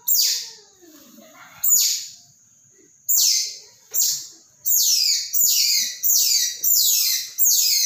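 Baby otter crying from hunger: a string of about ten shrill, high-pitched squeals, each falling in pitch, which come faster from about halfway through, less than a second apart.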